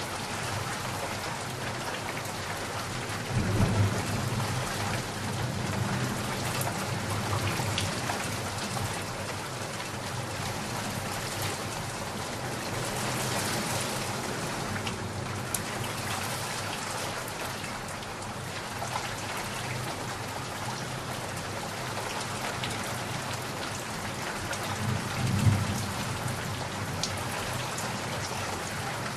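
Steady rain falling, with two low rolls of thunder: one about three seconds in that rumbles for several seconds, and a shorter one near the end.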